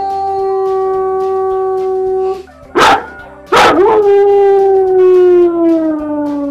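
A German Shepherd holds a long, steady howl that breaks off about two and a half seconds in. After two loud, sharp bursts of noise, a white shepherd dog starts a long howl that slowly falls in pitch.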